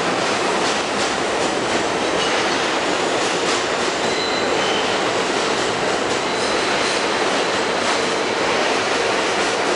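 R-32 subway train pulling out of an underground station and running past the platform: a steady loud rumble of steel wheels on rail with scattered clicks. There are brief faint wheel squeals about four seconds in.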